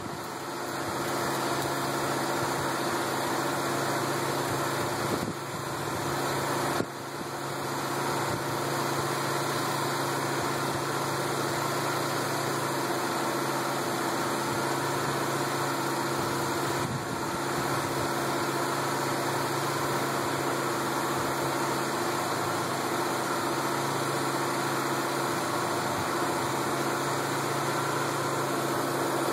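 Steady running of the pumping rig that feeds the cleaning gel up the hose to the roof: an even mechanical hum with a constant pitch, dipping briefly a few times.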